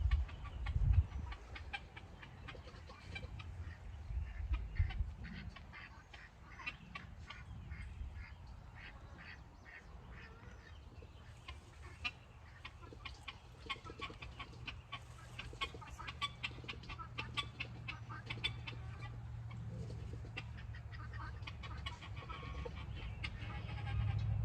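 Chickens clucking with many short, quick calls, some birdsong mixed in, and a few low thumps in the first five seconds.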